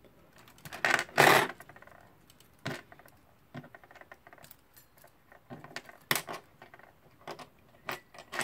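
Small brass clock parts clicking and clinking as a dismantled alarm clock movement is handled, with a louder metallic rattle about a second in and scattered single clicks after it.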